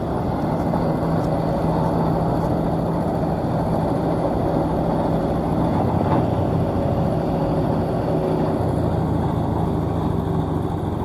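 Maxxi J combine harvester's engine running steadily under way, a continuous low drone with a constant pitch.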